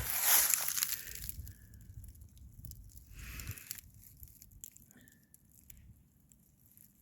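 Footsteps crunching over dry ground and brush, loud in the first second and then dying away, with one more short crunch about three seconds in before it goes quiet.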